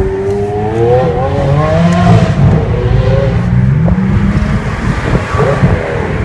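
Supercar engine accelerating hard, its pitch climbing and falling back several times.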